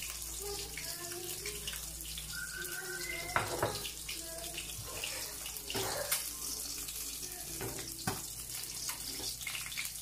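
Fish frying in hot oil in a nonstick pan, a steady sizzling hiss, with a few sharp clicks of a utensil against the pan about three and a half, six and eight seconds in.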